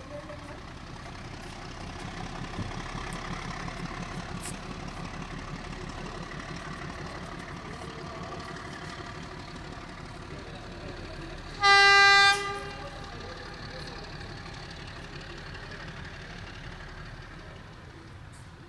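YDM4 meter-gauge diesel locomotive running as the train pulls away, with a low pulsing engine rumble that fades near the end. About twelve seconds in it gives one short horn blast, the loudest sound.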